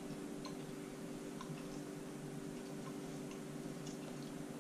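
Quiet room tone: a steady low hum with a few faint, irregularly spaced small clicks.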